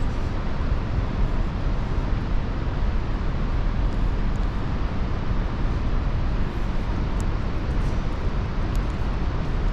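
Steady rushing of Helmcken Falls, a waterfall of just under 500 feet, heard as an even noise with a strong low rumble.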